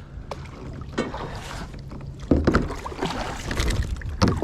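Knocks and handling noises aboard a fishing kayak over a low rumble of wind on the microphone, with the loudest knock a little past halfway.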